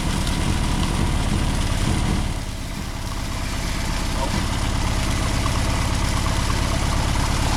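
Car engine running steadily, sounding like a blown head gasket; it briefly drops in level about two seconds in, then comes back up.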